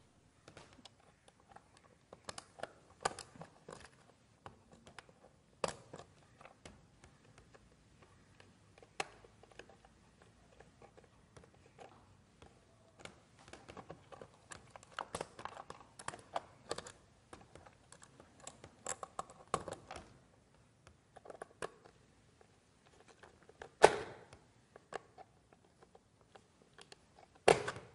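Scattered small clicks, taps and rustles of wire being handled and fitted to the terminals of one-way switches mounted on a wooden board, with two sharper knocks near the end.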